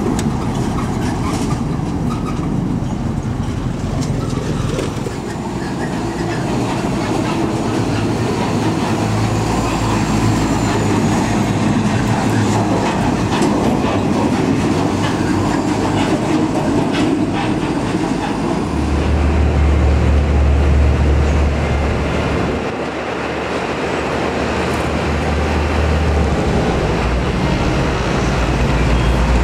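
Heavy diesel trucks passing one after another, engines running under load with tyre noise on the road. A deep, steady engine drone grows loud for several seconds in the second half.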